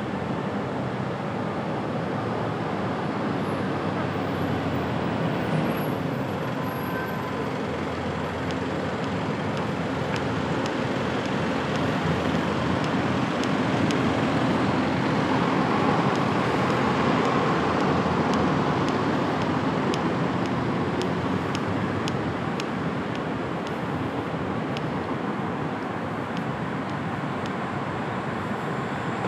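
Steady road traffic noise of a city street, swelling for a few seconds about halfway through as a vehicle passes.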